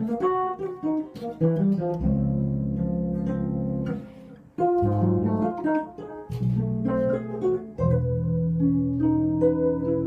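Multi-string electric bass played solo, mixing plucked single notes with chords. There is a short break about four seconds in, and a long chord held from about eight seconds in.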